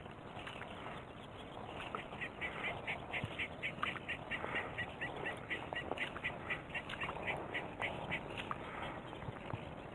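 A bird calling from the reeds in a long, steady series of short repeated notes, about three or four a second, starting about two seconds in and stopping near the end.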